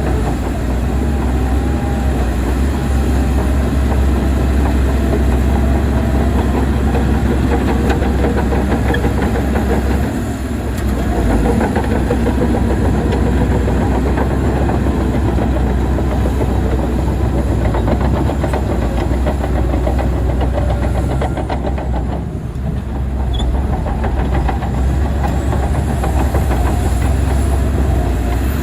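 Diesel engine of heavy tracked earth-moving machinery running steadily under load. It eases off briefly about ten seconds in and again around twenty-two seconds.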